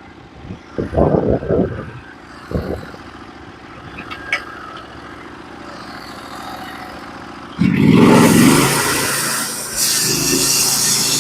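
Norwood HD36v2 portable bandsaw mill's engine running at idle, then throttled up sharply about eight seconds in to drive the band blade. Near the end the blade starts cutting into a pitch pine cant with a steady sawing sound.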